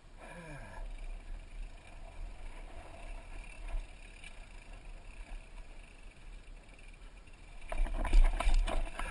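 Downhill mountain bike rolling down a dirt trail, heard from a helmet camera: a steady low rumble of tyres on dirt and gravel. Near the end comes a burst of loud clattering knocks as the bike rides down over rock slabs.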